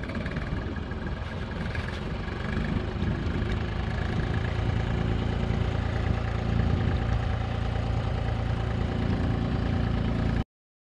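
An engine running steadily. It grows louder over the first few seconds, then holds, and cuts off suddenly near the end.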